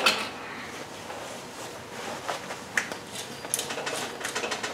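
Steady hiss of the gas torch flames on a glassworking lathe, with a few sharp clicks and, near the end, a quick run of clicks and rattles as a gloved hand handles the lathe's tube holder.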